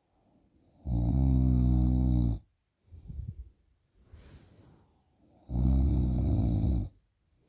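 A person snoring loudly while sleeping off heavy drinking: two long, buzzing snores, each about a second and a half, with softer breaths between them.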